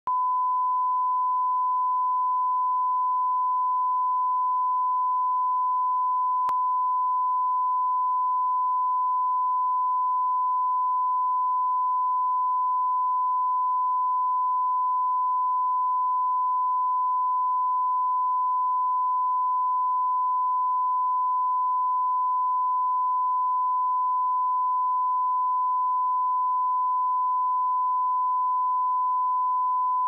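A steady 1005 Hz sine-wave test tone for checking speakers and headphones: one pure tone held unchanged at an even level.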